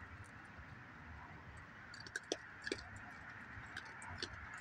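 Faint, scattered clicks and crunches of dry cat-food kibble being handled and eaten by a raccoon, mostly in the second half.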